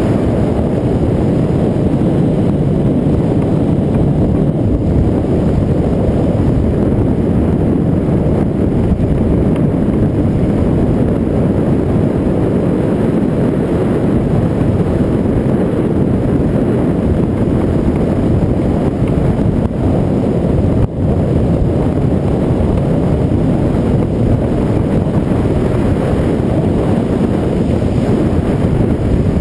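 Wind buffeting an action camera's microphone during a fast bicycle descent: a loud, steady, low rush with no breaks.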